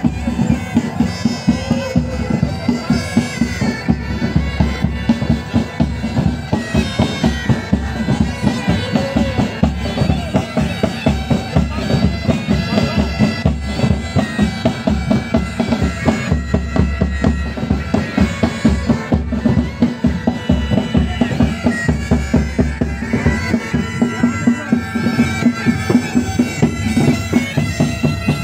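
Military pipe band playing a march: bagpipes sound a continuous drone and melody over a regular beat of marching drums.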